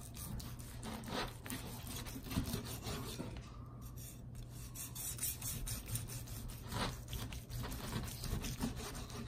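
A dull chef's knife sawing back and forth through a seared steak and scraping on a plastic cutting board: repeated rasping strokes. The knife is not sharp, so it saws rather than slices cleanly.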